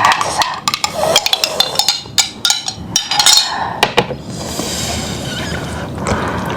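Tableware clinking and knocking in a quick run of sharp clicks for about four seconds, then a steady hiss for the rest.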